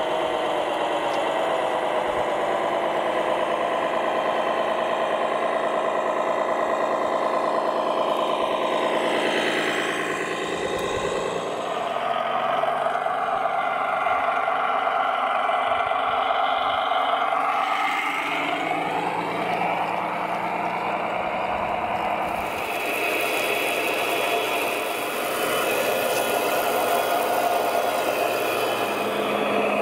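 Large radio-controlled model fire trucks driving, their drive making a steady engine-like running sound with several pitches. The pitch falls about eight seconds in and climbs again around eighteen seconds as the trucks slow and speed up. From about twenty-two seconds a steady hiss joins in.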